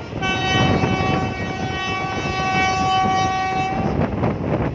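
Train horn sounding one long steady blast of nearly four seconds, over the rumble and rail clatter of the moving passenger train.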